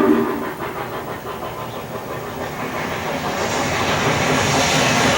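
HO-scale model train running along the track with a steady rolling rumble. A held tone stops just after the start, and a rushing hiss grows louder from about three and a half seconds in.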